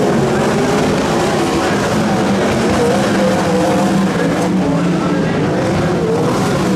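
Several 360 winged sprint cars, each with a 360 cubic-inch V8, racing together on a dirt oval. The engines run at high revs, their pitch wavering up and down as the cars pass and work through the turns.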